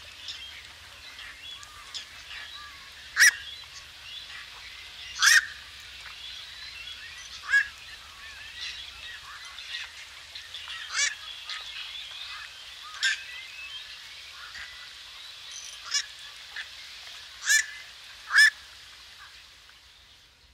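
Black-crowned night heron giving short single 'quok' calls, about eight of them spaced a second to a few seconds apart, over a steady background of small birds chirping.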